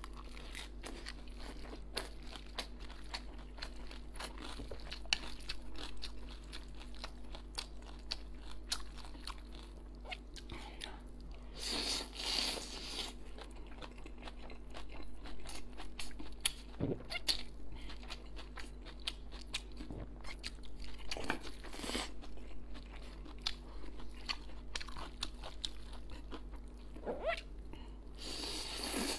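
Close-miked chewing and slurping of stir-fried noodles: a steady run of small wet crunching and smacking clicks, with a couple of longer, louder slurps, one about twelve seconds in and one near the end.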